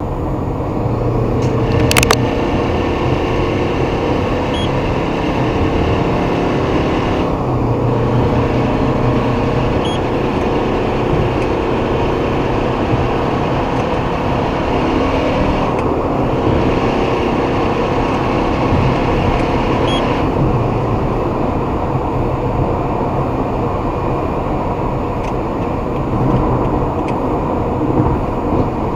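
Subaru Forester SJG (turbocharged 2.0-litre flat-four) running with a steady vehicle noise, recorded as an abnormal noise (異音) on the car. A sharp click stands out about two seconds in, with a few fainter ticks later.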